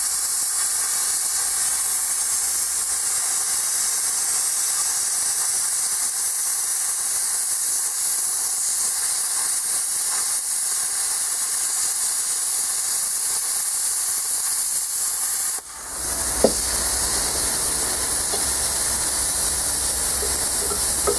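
Plasma cutter cutting half-inch steel plate: a steady, loud hiss of the arc and air jet. The cut stops about sixteen seconds in, a steady hiss with more rumble carries on, and a single sharp tap follows.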